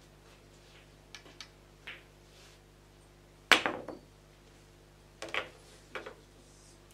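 Pool balls and cue on a pool table: a few light clicks, then one sharp loud knock about halfway through, and two more sharp clicks about a second and a half later as a shot is played.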